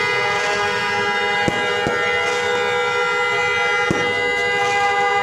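A steady blare of several held horn-like tones, with three sharp firecracker bangs, two close together about a second and a half in and one near the end.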